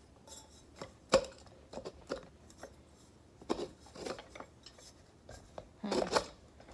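Parts of a manual rice grinder being handled and fitted together: scattered clicks and knocks, with a sharp knock about a second in and a burst of clattering near the end.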